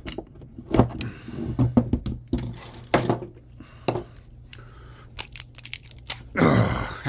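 Sharp metal clinks and knocks with scraping between them, as hand tools pry and pull copper winding wire out of an electric motor's steel core. A drawn-out voice sound near the end.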